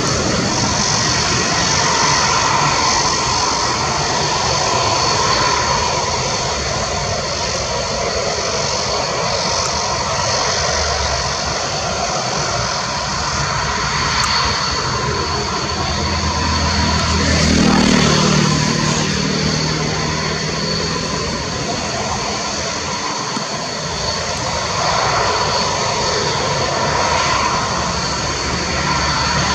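Mirage 2000-5 fighter's single M53-P2 turbofan running on the ground: a steady jet rush with a constant high-pitched whine over it, swelling a little in the low end about two thirds of the way through.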